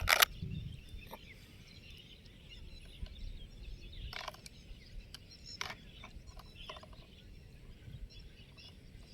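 Faint birds chirping in the background, with two sharp clicks right at the start and a few lighter knocks about four and five and a half seconds in.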